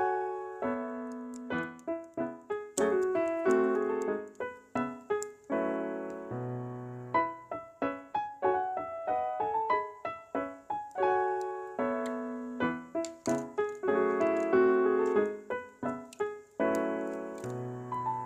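Background piano music: a melody of struck, fading notes over chords, with an occasional low bass note.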